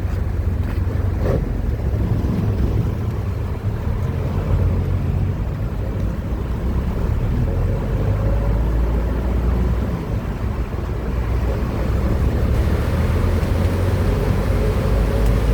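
Steady low rumble of road traffic, with wind on the microphone.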